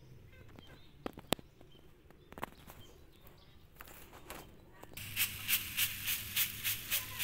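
Faint scattered rustles and ticks in leaf litter, then from about five seconds a fast regular swishing through fallen dry leaves, about three strokes a second.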